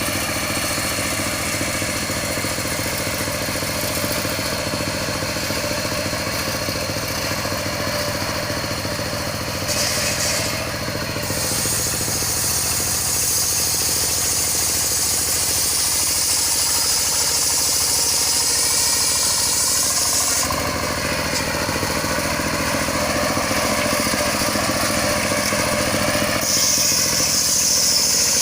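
Engine-driven circular sawmill running steadily, with the saw blade cutting through a log from about ten seconds in for about ten seconds and again near the end, adding a bright hiss while the engine's pitch wavers under load.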